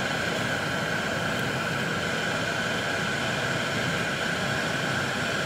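Car air-conditioning blower running steadily inside the cabin: an even rushing hiss with a faint steady whistle in it.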